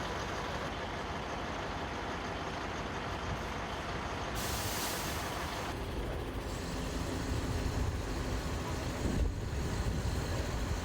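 A heavy vehicle's engine running with a steady rumble, and a loud hiss about four seconds in that lasts a second and a half.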